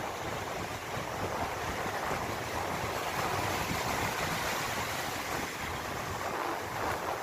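Surf breaking and washing up the shore in a steady rush, with wind rumbling on the microphone.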